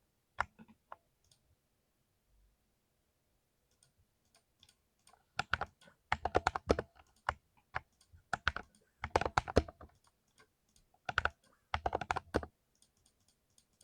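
Mechanical keyboard with lubed Cherry MX Silver Speed switches being typed on: a few keystrokes about half a second in, a pause, then several quick bursts of fast typing from about five seconds in.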